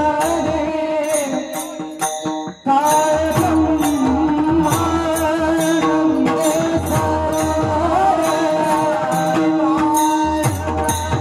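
Devotional kirtan music: a voice sings a melody over sustained accompaniment, with regular percussion strikes keeping the beat. There is a brief break about two and a half seconds in.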